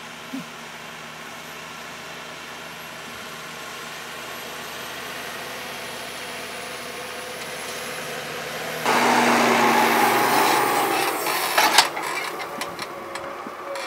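Case Puma 185 tractor's six-cylinder diesel running steadily under load, pulling a six-furrow Kuhn Manager plough. About nine seconds in, a louder rushing noise takes over, with a sharp knock and irregular clattering as the plough bodies pass close by turning the soil.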